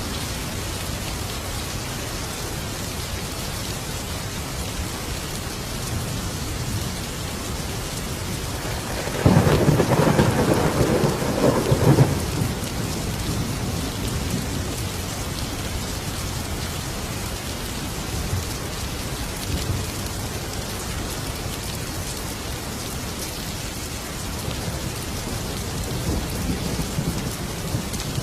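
Steady heavy rain with a single loud thunderclap about a third of the way in that rumbles for about three seconds before the rain hiss carries on alone.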